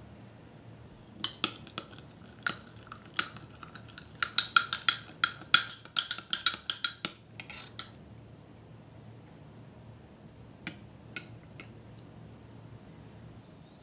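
Metal spoon stirring gelatin powder into chocolate syrup in a small glass measuring jug, clinking and ringing against the glass in a fast run of clinks. A few single taps of the spoon on the glass follow later.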